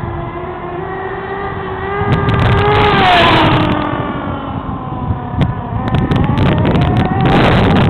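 Small nitro glow engine of a radio-controlled car running at high revs, its whine rising and falling in pitch as the throttle is worked. It gets louder and rougher twice, about two seconds in and again near the end.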